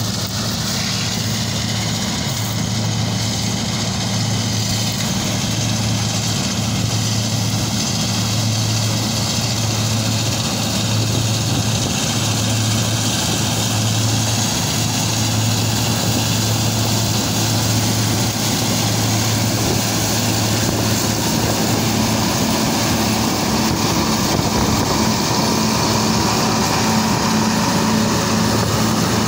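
John Deere S670 combine harvester running as it picks up a windrow with its pickup header: a steady engine and threshing drone. Its low hum shifts up in pitch about two-thirds of the way through, and it grows a little louder as the machine passes close.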